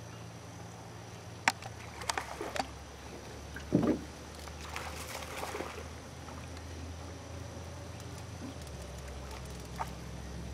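Small fishing boat on calm water: a steady low hum, with a few sharp clicks and knocks of gear, the loudest a dull thud about four seconds in.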